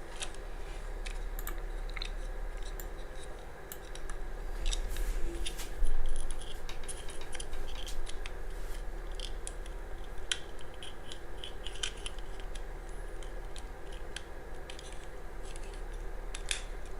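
Small clicks, snaps and scrapes of a barbecue lighter's plastic casing and parts being pried apart by hand. A louder knock comes about six seconds in.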